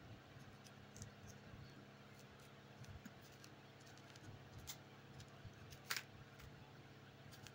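Faint, scattered clicks and scrapes of a knife and the stiff green peel as an unripe plantain's skin is slit and pried off by hand. The sharpest click comes about six seconds in, over a low steady hum.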